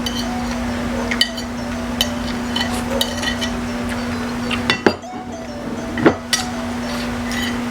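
Cutlery clinking against dishes while eating, in scattered light taps, over a steady low hum. Two louder, longer sounds come about five and six seconds in.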